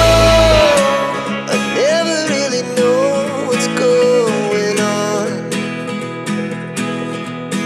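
Background pop song: a sung melody over acoustic guitar. The deep bass drops out under a second in, and the second half is mostly strummed guitar.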